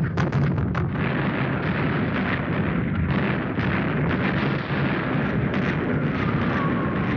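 Continuous bombardment: many explosions crowding into a steady rumble, with sharp blasts throughout. Near the end, the whistle of an incoming projectile starts and falls steadily in pitch.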